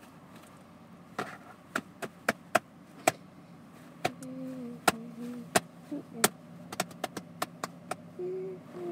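Homemade slime being pressed and slapped on a hard tray, giving an irregular string of sharp clicks and snaps. A voice hums a short tune in the middle and again near the end.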